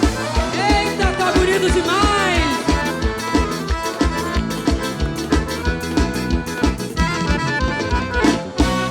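Live forró band with an accordion (sanfona) taking the lead over electric bass and drum kit, which keep a fast, steady beat.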